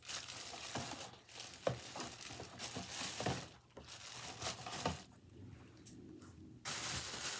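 Rustling and crinkling of a bag and packaging being rummaged through by hand, with a few sharp crackles. It goes quiet briefly about five seconds in, then the rustling starts again.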